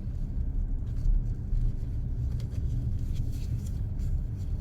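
Car rolling slowly, a steady low rumble of engine and tyres heard from inside the cabin, with a few faint knocks.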